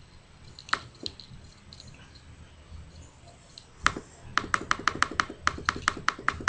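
Typing on a computer keyboard: two single keystrokes about a second in, then a quick run of keystrokes from about four seconds on.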